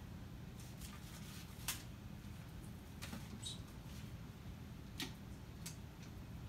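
Faint, scattered clicks and taps of metal kitchen tongs lifting raw chicken breasts from a tray into an Instant Pot's inner pot, over a low steady hum.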